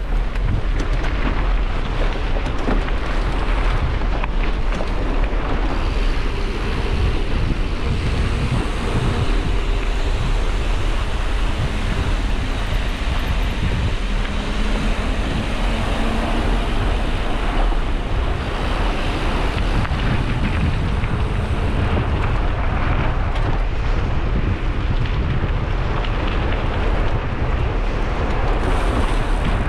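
Steady wind rumble on the microphone of a mountain biker's camera while riding.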